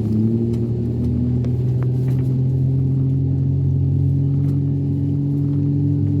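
A vehicle engine running with a steady low drone, its pitch creeping slowly upward. The level rises a little right at the start.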